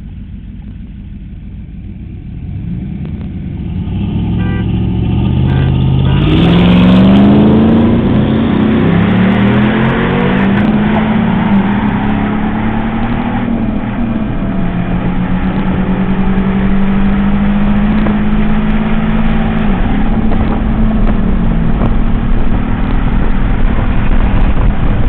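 Performance truck engines accelerating hard from a standing start in a drag race: a low rumble that swells from about three seconds in, climbs in pitch to its loudest around seven seconds, then runs loud and steady with the pitch dropping back at several upshifts.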